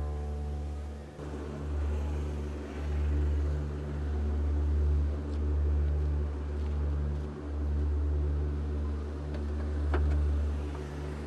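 Low, steady rumble of a motor vehicle's engine running, swelling and easing every second or two, with a single sharp click about ten seconds in.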